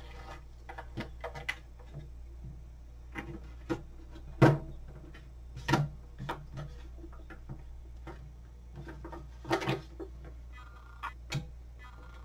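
Scattered knocks and clicks of objects being handled, irregular, the loudest about four and a half seconds in, over a steady low hum.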